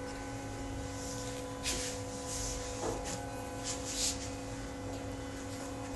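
Steady electrical hum with several fixed tones, broken by a few short hissing noises about two and four seconds in.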